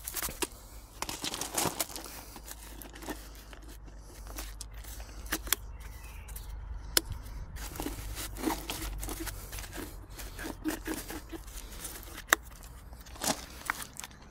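Handling noises from a just-removed front shock absorber worked in gloved hands: scattered sharp clicks and knocks, the loudest about twelve seconds in, over rustling and scraping.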